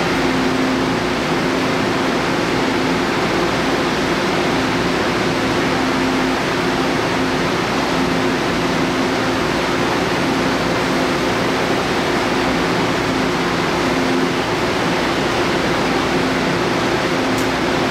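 Steady hum and rushing air from a TEMU2000 Puyuma electric multiple unit standing at the platform, its air conditioning and onboard equipment running, with two steady low tones under the noise.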